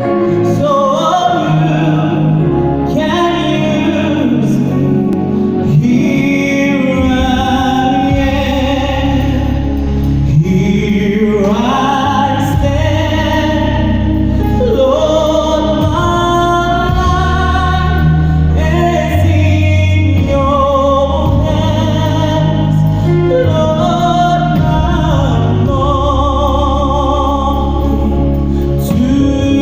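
Gospel singers performing a slow song with wavering vibrato and sliding phrases, over instrumental backing with long held bass notes.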